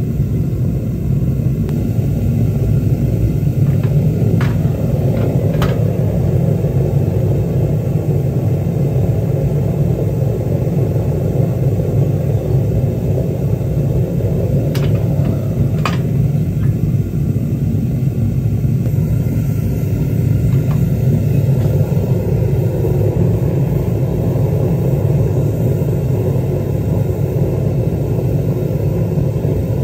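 Home-made foundry furnace's gas burner firing steadily, a deep continuous roar as it melts a crucible of copper rods. A few light ticks sound over it in the first half.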